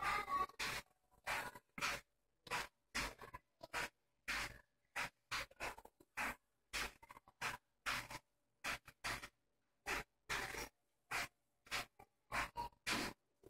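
A cat scratching and rubbing at a rug: short scratchy rustles that come and go irregularly, one or two a second.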